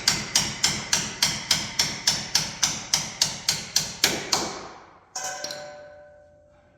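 Hammer blows on metal in a steady run of about three a second, fading out about four seconds in. A single strike a second later leaves a ringing metallic clang.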